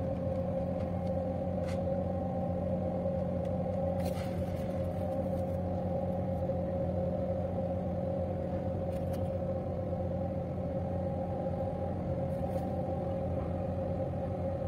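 A boat's diesel engine running steadily at constant speed: a low drone with a steady hum that holds its pitch throughout.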